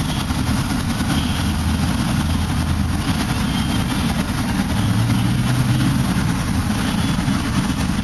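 Steady low rumble of idling vehicle engines in city traffic, with a held hum that steps up in pitch for about a second, around five seconds in.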